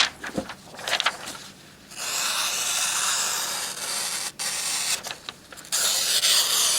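Knife work: a few short scrapes and taps, then two long, even scraping strokes, each lasting about two to three seconds.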